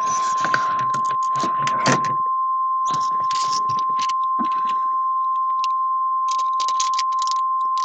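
EAS alert attention signal from encoder software: a single steady tone at about 1050 Hz, the weather-radio alert tone, held at an even level. Irregular crackles and clicks sound over it.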